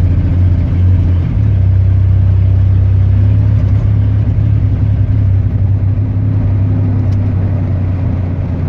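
Chevy 4.3-litre engine running steadily with a misfire.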